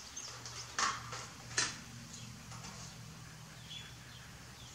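Two short clinks of steel grille-guard brackets and bolts being handled, about a second in and again just over half a second later, with a few fainter ticks over a low steady hum.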